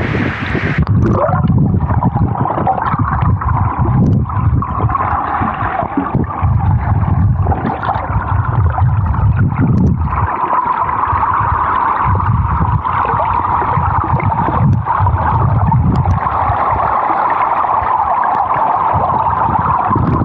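Waterfall pool heard underwater: a muffled, rumbling gurgle of churning water. The airy hiss cuts off about a second in as the microphone goes under.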